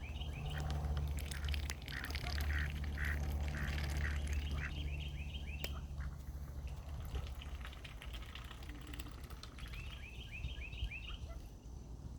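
Mallard ducklings peeping in quick runs of short, falling peeps: through the first half and again near the end. A steady low hum lies under the first half and fades out about halfway through.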